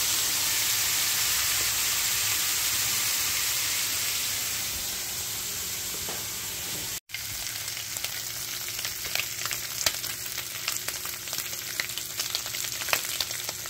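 Bacon strips frying in a skillet: a steady sizzle, broken by a brief dropout about halfway, then a crackling sizzle with many small pops.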